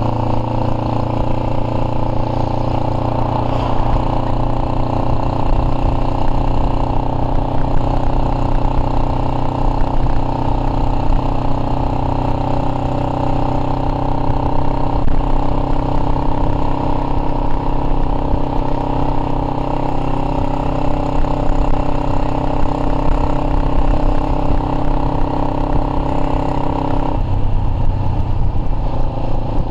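Cruiser motorcycle engine running steadily at road speed, heard from a camera mounted on the bike. A little before the end, the engine note changes.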